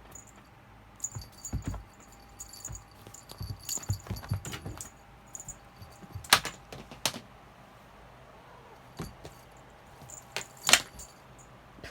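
Jingling and rattling of a cat toy as a cat plays with it, with soft thumps in the first half. Two sharp clicks, about six and ten and a half seconds in, are the loudest sounds.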